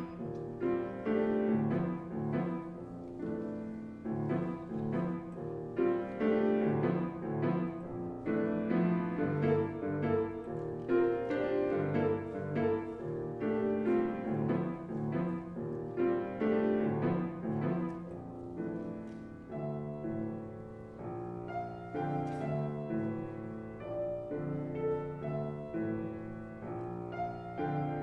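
Solo grand piano playing a busy stream of notes and chords, lighter and higher in the last third.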